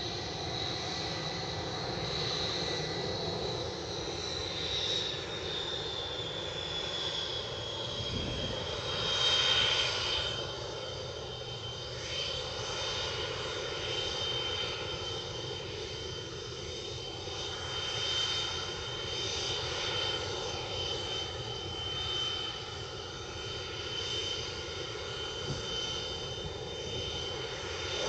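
MiG-21 Bison's Tumansky R-25 turbojet running at taxi power: a steady rush with a high turbine whine that drops a little in pitch over the first several seconds, then holds steady, with one brief swell about nine seconds in.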